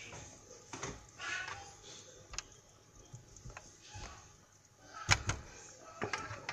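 A spatula stirring tomato sauce in a stainless steel pot, with scattered light knocks and clicks against the pot and a louder pair of knocks about five seconds in.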